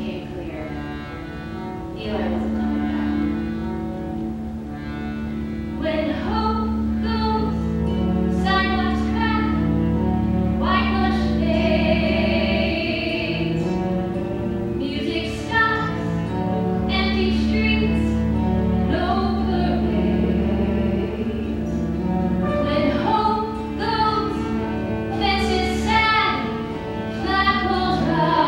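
A woman singing a musical-theatre song over instrumental accompaniment, with long held notes sung with vibrato.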